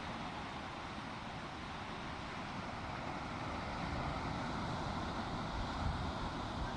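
Steady rush of sea surf, with wind buffeting the microphone and swelling a little in the second half.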